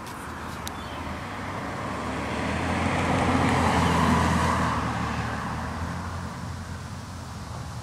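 A car driving past: its road noise swells, is loudest about halfway, then fades away.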